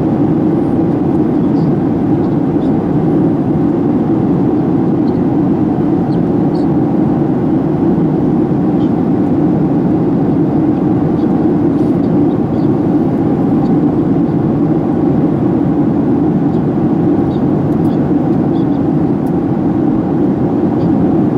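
Boeing 737-800 cabin noise in flight: a steady, even drone of engines and airflow heard from a window seat over the wing.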